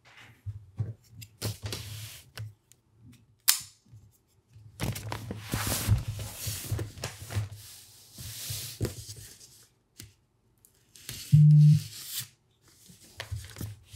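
Folding knife slicing the tape on a kraft-paper-wrapped box, with paper rustling and crinkling and scattered sharp handling clicks. Late on comes a short, loud knock as the box is handled.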